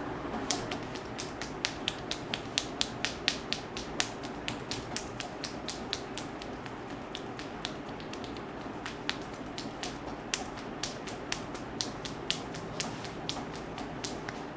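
Sharp clicks and snaps from a barber's hands during an Indian head massage, several a second in an uneven rhythm, easing off for a few seconds about halfway, over a steady background rumble.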